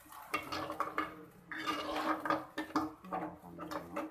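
A spoon or ladle stirring and scraping a thick ground onion-coconut paste in a cooking pan, with irregular clinks and scrapes of the utensil against the pan.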